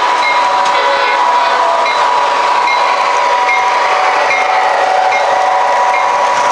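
MTH Premier O-gauge model passenger train running past on three-rail track: a steady rumble of wheels and motors with light, regular clicking. Its hum drops in pitch about halfway through as the locomotive goes by.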